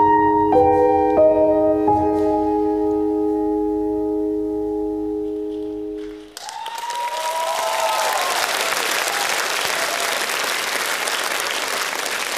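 Music closing on sustained keyboard chords, with a few notes struck in the first two seconds, cuts off about halfway. An audience then applauds and cheers, with a few shouts near the start of the applause.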